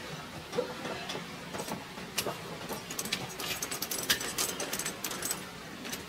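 Footsteps of a hiker scrambling over snow and rock: irregular short clicks, scuffs and scrapes, coming thickest in the middle, over a low hiss.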